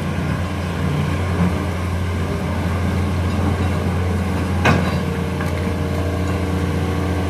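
Heavy diesel engine of earth-moving machinery running steadily with a deep hum, with one sharp knock a little under five seconds in, after which the engine note fills out with higher tones.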